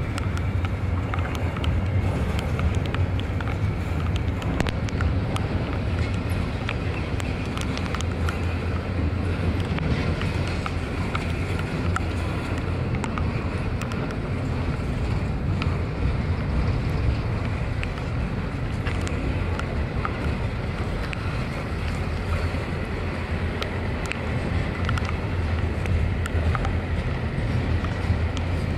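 Double-stack intermodal freight cars rolling past: a steady rumble of steel wheels on rail, with scattered sharp clicks.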